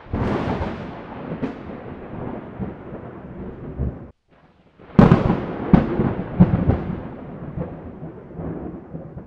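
Logo-intro sound effects: a sudden boom at the start and another about five seconds in, each dying away in a long rumble, with a few sharper cracks in between. The sound cuts out briefly just before the second boom.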